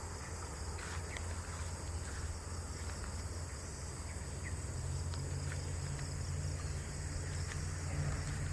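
Outdoor ambience: a steady high-pitched insect drone over a low steady rumble, with a few faint clicks.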